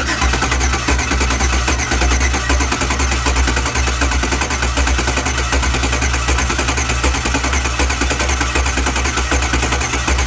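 Chevrolet Silverado's 5.3-litre V8 running loud and rough, with a heavy low rumble and rapid uneven pulsing: cylinder 6 is misfiring because it has no compression.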